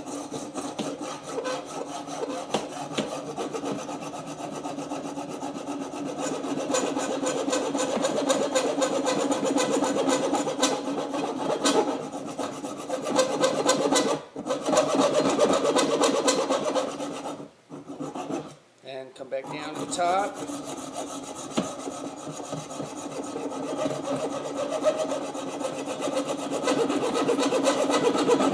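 Hacksaw sawing back and forth by hand through a purpleheart-wood whistle body and the quarter-inch brass tube inside it, cutting the notch for the reed. Steady strokes, with a short pause about halfway and another a few seconds later.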